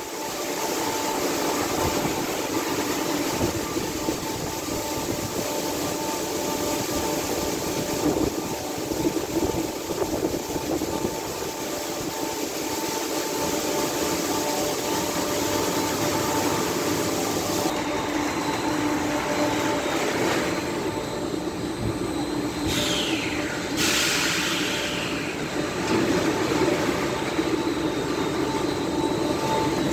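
Christ automatic gantry car wash running on a car: a steady mechanical noise with a constant whine. A little past halfway the sound changes, with a brief falling whine.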